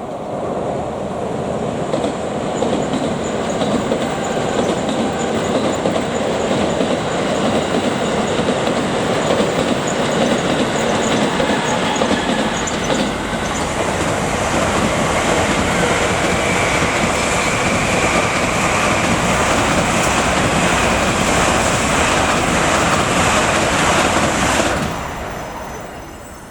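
Trains passing close by: a JR Special Rapid and a Tokaido Shinkansen N700-series train, with steady wheel-on-rail noise and clatter. A high whine joins about two-thirds of the way through, and the noise drops away sharply near the end.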